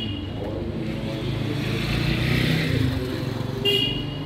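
A motor vehicle passing in the street over a low steady hum. It swells to its loudest about two to three seconds in, then fades. A brief high-pitched tone sounds near the end.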